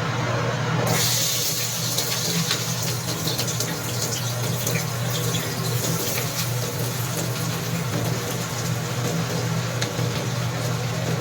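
Kitchen tap running, the water starting suddenly about a second in and then pouring steadily, over a steady low electrical hum.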